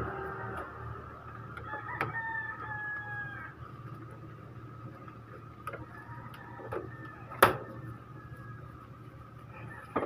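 A rooster crowing in the background, one long call in the first few seconds and fainter calls after. A few sharp clicks and knocks come over it, the loudest about seven seconds in.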